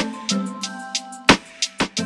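Background music: a beat of sharp drum hits over sustained chords.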